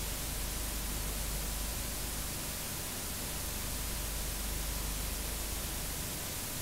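Steady static hiss from the blank end of a videotape playing back, with a low electrical hum beneath it.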